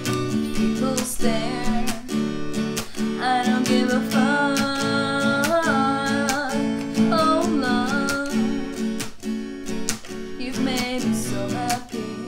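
Acoustic guitar strummed in a steady rhythm, with a singing voice holding long, wavering notes from about three seconds in to about eight, and again briefly near the end.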